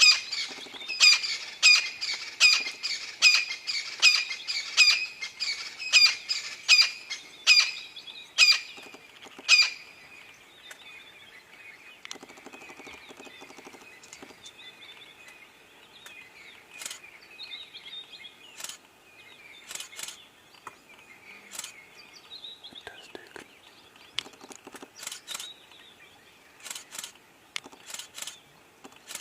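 A bird calling: loud, sharp, repeated calls about two a second that slow and stop about ten seconds in, followed by fainter, scattered bird calls.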